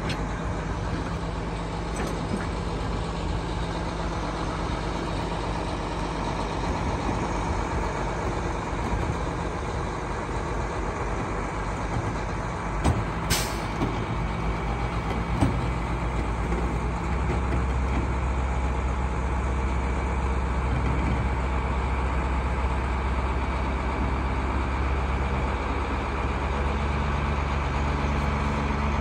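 Heavy truck engine running steadily, most likely the tow truck's. A short sharp hiss comes just before the middle, with a knock or two near it, and the engine drone grows louder about two thirds of the way through.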